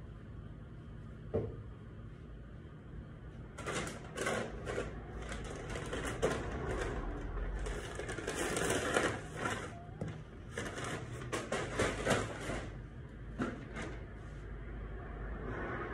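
Objects being handled: a single knock, then about ten seconds of rustling and clattering, many quick knocks mixed with crinkly noise.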